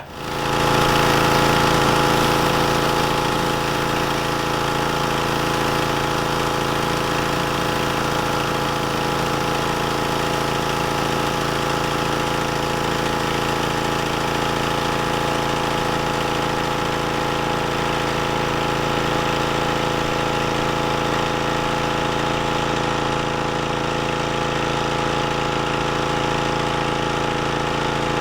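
Pressure washer running steadily, driving a rotary surface cleaner over pavement: an even machine drone with the hiss of high-pressure water spray. It starts abruptly and swells about a second in.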